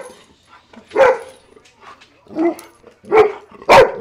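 Dog barking in excited greeting: four short, loud barks, the last two close together near the end.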